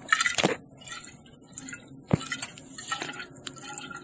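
Water trickling through an aquarium overflow into the sump, with a few sharp clinks and knocks, the loudest about half a second in and about two seconds in.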